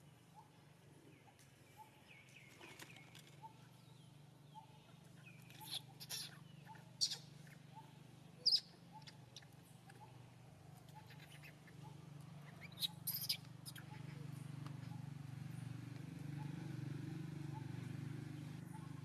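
Dry leaves and twigs crackling sharply a few times around the middle, over a faint steady low hum.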